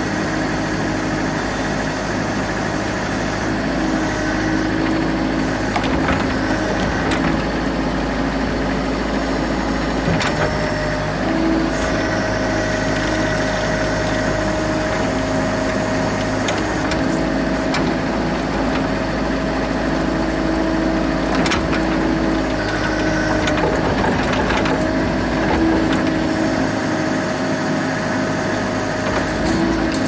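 Mini excavator's diesel engine running steadily while the boom and bucket dig, heard from the operator's cab. A steady whine joins the engine about ten seconds in.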